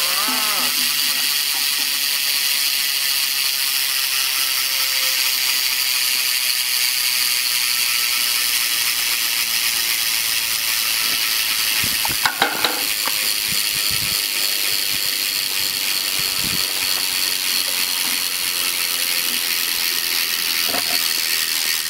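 Proper BMX cassette rear hub freewheeling: its pawls click so fast that they blur into a loud, steady, high-pitched ratcheting buzz. There are a couple of short knocks about twelve seconds in.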